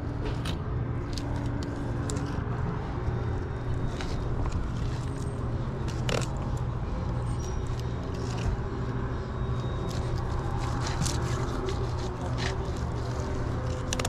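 A fillet knife cutting a black drum, with irregular sharp crunches and scrapes as the blade works through the scales and along the ribs, over a steady low hum.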